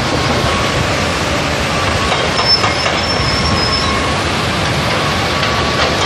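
Heavy earthmoving machinery, hydraulic excavators and a wheel loader, running with steady diesel engine and machinery noise. A thin, high metallic squeal rides over it for about a second and a half in the middle.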